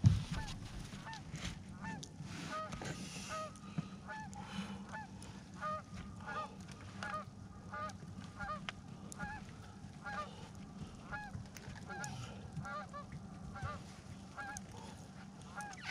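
A flock of geese honking, many short calls overlapping two or three a second, over a low steady hum. A single knock sounds right at the start.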